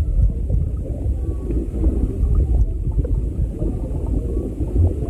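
Low, muffled rumble of water heard through an underwater camera, steady and without distinct events.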